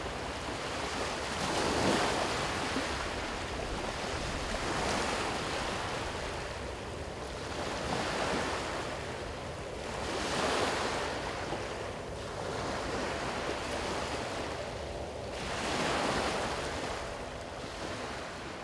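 Sea waves washing in on the shore, the surf swelling and ebbing about every three seconds.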